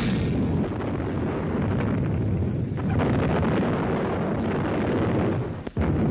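Artillery barrage on an old newsreel sound track: a dense, continuous rumble of gunfire and explosions that cuts out for a moment near the end.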